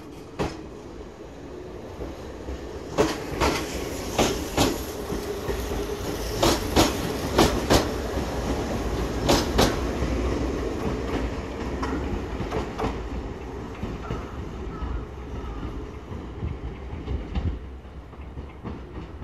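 Electric commuter train of the Izuhakone Railway Sunzu Line pulling away from the platform. Its wheels clack in pairs over the rail joints over a steady rumble. The sound fades in the last few seconds as the train draws away.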